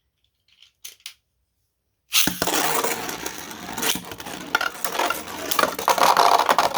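Two 3D-printed Beyblade spinning tops launched into a plastic stadium about two seconds in, then spinning and clashing: a steady whirring hiss full of rapid clicks and clacks as they hit each other and the stadium walls.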